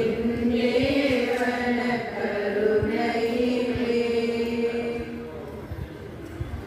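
Voices chanting a church hymn in long held notes, fading away after about five seconds.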